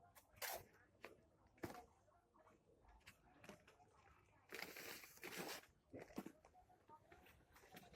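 Faint scattered clicks and taps, with a brief rasping noise about four and a half seconds in that lasts about a second.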